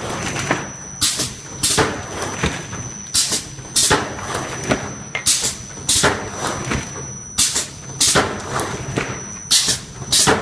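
Mailer-bag-making machine running: a steady low hum with short, sharp hissing bursts repeating about once or twice a second as the machine cycles.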